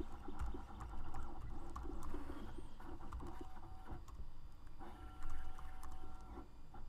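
Computer keyboard typing: scattered light key clicks over a low steady hum.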